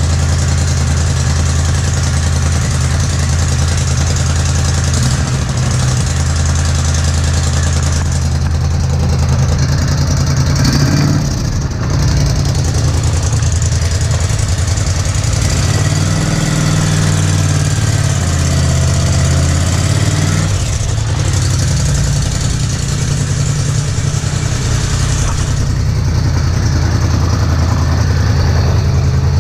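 Polaris Scrambler 850 ATV's twin-cylinder engine idling steadily. Its pitch wavers up and down briefly a little before the middle and again just after it.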